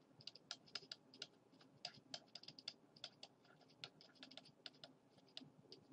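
Faint, irregular clicks of a stylus tapping a tablet screen during handwriting.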